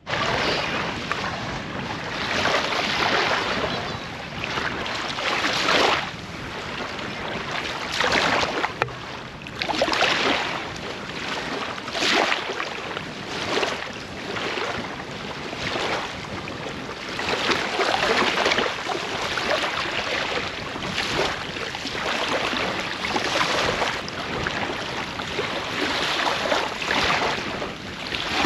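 Small waves washing onto a sandy shore, mixed with wind on the microphone. The rushing noise rises and falls irregularly every second or two.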